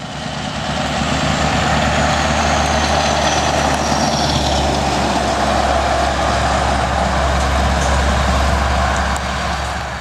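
Scania R-series truck driving past and pulling away, its diesel engine giving a deep, steady drone that grows stronger about halfway through. A faint high whistle falls in pitch during the first few seconds.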